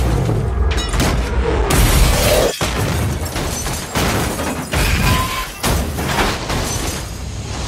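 A car crash with a rollover: a string of heavy impacts and booms, about one every half second to second, as a car is knocked into the air and tumbles over, hitting the ground again and again.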